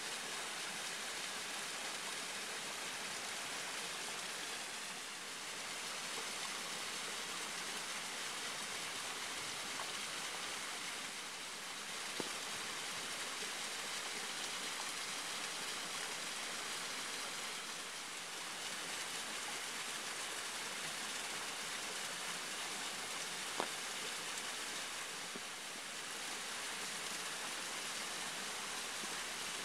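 Waterfall running: a steady rush of falling water. Two faint ticks come through, one about a third of the way in and one about four-fifths of the way in.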